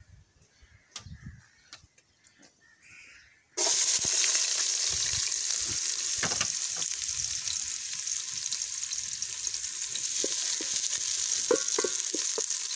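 Sliced onions dropped into hot cooking oil in a metal pot, setting off a sudden loud sizzle about three and a half seconds in that holds steady. Near the end a wooden spoon stirs them.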